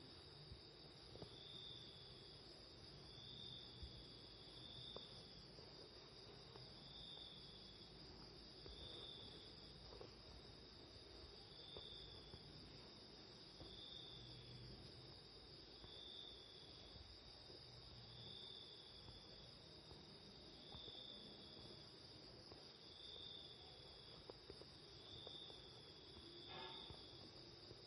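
Faint insect chirping: a steady high trill with a shorter chirp repeating about every two seconds, over low room hum.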